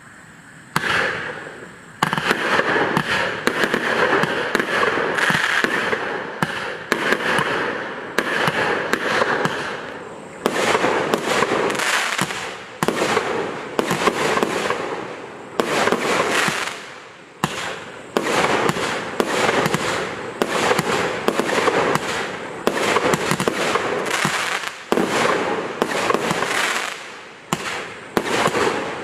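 Fireworks going off without a break: dense, rapid crackling and popping that swells and eases every couple of seconds, starting about a second in.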